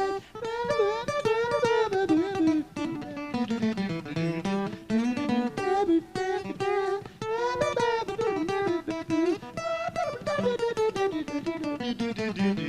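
Solo acoustic guitar playing a free-form instrumental intro to a blues tune: quick plucked notes with pitches bent and sliding up and down.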